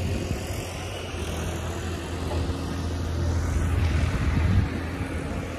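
Tractor engine running, a steady low drone that swells about four seconds in and then eases back.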